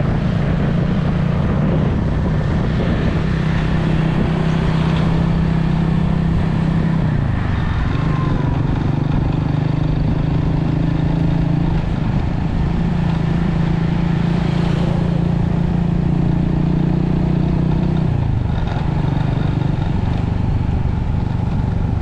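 Motorcycle engine running steadily under way, with wind rushing past. The engine note drops and picks up again about seven seconds in and again near eighteen seconds, as the speed changes.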